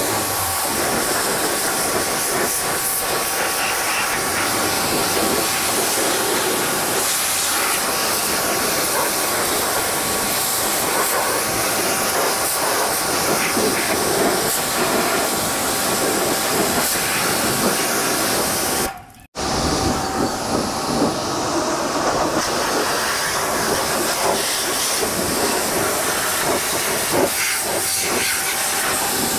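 High-pressure washer jet spraying water onto a tractor's metal frame and engine: a steady loud hiss of spray with a faint steady whine underneath. It cuts out for a moment about two-thirds of the way through.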